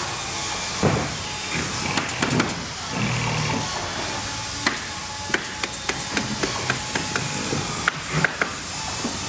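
Handling noise: a plastic bag rustling as a hard-plastic 1/10 scale RC Defender 90 body is unwrapped, then scattered sharp clicks and knocks as the body is handled and set onto the crawler chassis to check the fit.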